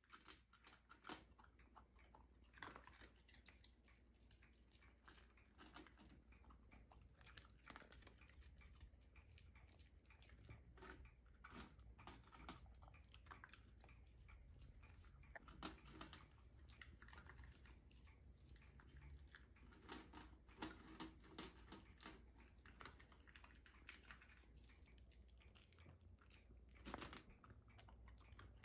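Shiba Inu crunching dry kibble a piece at a time: faint, crisp crunches in quick clusters, over and over.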